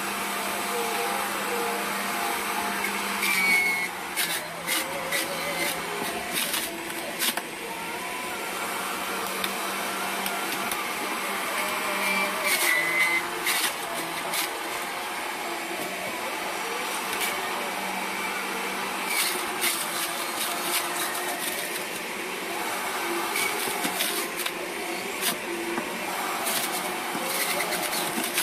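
Electric centrifugal juicer running steadily, its motor whirring while napa cabbage leaves are pushed down the feed chute onto the spinning grater disc. Irregular clusters of crackles and clicks come through several times as the vegetables are shredded.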